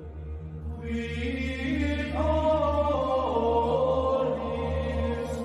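Gregorian-style chant over a steady low drone. A sung line enters about a second in and holds notes that step down partway through.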